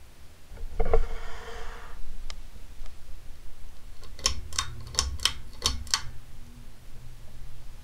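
Clicks of a ceiling fan's pull-chain switch: a click and brief rustle about a second in, then about six sharp clicks in quick succession around the middle, with the motor's low hum underneath.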